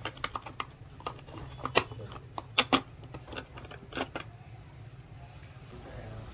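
Hard plastic parts of a wall clock clicking and knocking as the pendulum arm is fitted onto the battery clock movement: irregular sharp clicks, the loudest near the middle, over a steady low hum.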